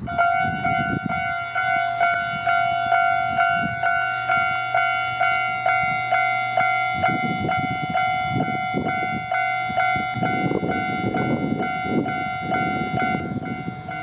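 Japanese level-crossing electronic warning bell starting up and ringing a rapid, even 'kan-kan' ding. It is the alarm that a train is approaching the crossing. A low rumbling noise swells underneath about seven seconds in.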